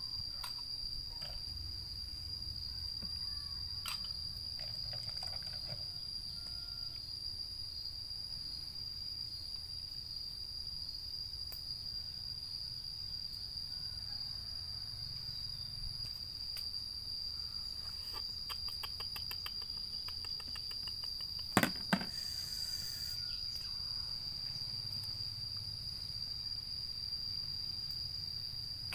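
Insects chirring in one steady, unbroken high-pitched drone over a low background rumble. About three quarters of the way in there is a quick run of fast clicks, then two sharp knocks half a second apart.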